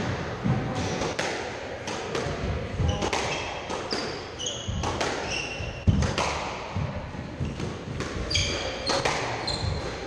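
Squash rally: the ball cracking off rackets and knocking against the court walls, with short high squeaks of shoes on the wooden floor. The loudest hit comes about six seconds in.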